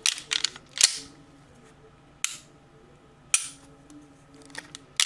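Glock 19 Gen 5 being dry-fired: sharp metallic clicks and snaps of the slide being racked and the trigger breaking, fitted with a 3.5 lb connector. A cluster of clicks comes in the first second, single clicks follow about two and three seconds in, and another cluster comes near the end.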